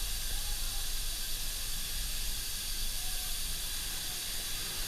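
Steady hiss of broad noise with a constant low rumble underneath.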